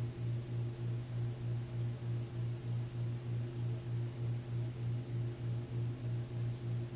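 Steady low electrical-sounding hum that pulses evenly, about three times a second.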